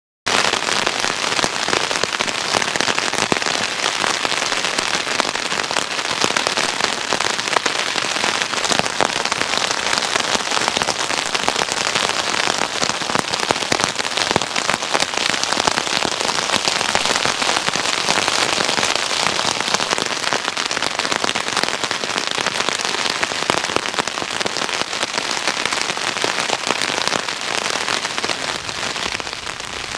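Heavy rain falling on a Terra Nova Southern Cross 1 tent's flysheet: a dense, steady hiss of countless drop impacts, easing slightly near the end.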